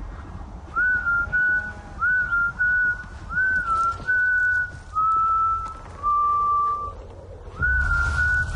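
A person whistling a slow tune of long held notes, each sliding up into its pitch, over a steady low rumble.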